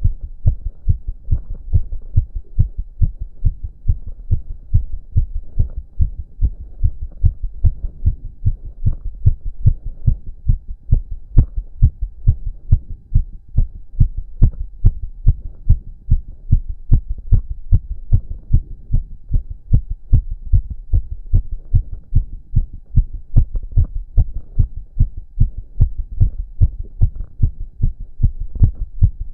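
A man's heartbeat, quickened by exercise: a fast, steady train of low thumps.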